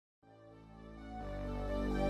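Soft soundtrack music fading in from silence: held chords that swell steadily, moving to a new chord about a second in.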